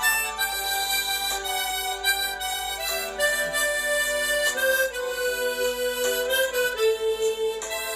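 Harmonica playing a slow melody of held notes.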